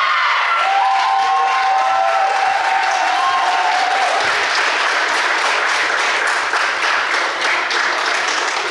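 Crowd applauding, with a few held shouts or cheers over the clapping in the first few seconds; the applause thins out near the end.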